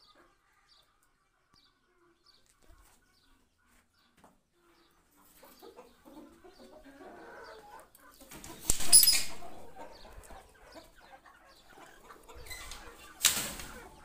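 Caged birds flapping their wings in two short, loud flurries, one about two-thirds of the way in and one near the end, with softer rustling between. The start is near silent.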